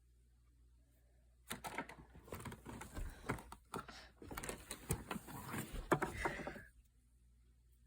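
Hoover Tempo vacuum cleaner being handled with its motor off: irregular clicking and clattering of its parts for about five seconds.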